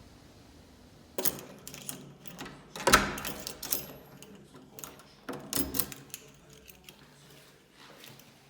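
Irregular clicks, clatters and knocks of objects being handled, in three groups, the loudest a sharp knock about three seconds in.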